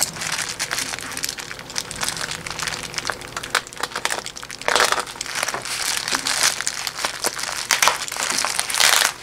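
Bubble wrap crinkling and crackling as hands handle it and a utility knife cuts into it, with many sharp little clicks and louder rustling swells about five seconds in and near the end.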